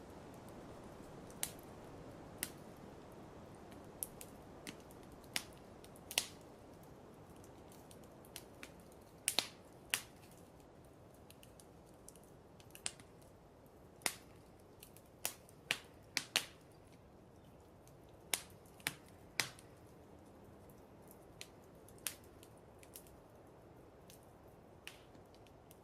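Wood fire crackling: irregular sharp pops and snaps, some in quick pairs, over a soft steady hiss.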